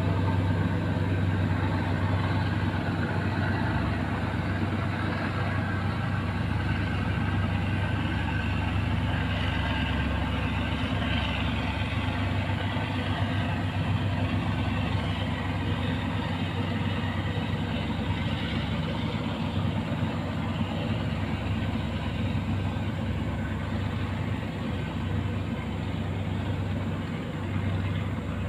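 Engine of a passing river cargo boat running steadily, a low continuous hum that eases slightly near the end.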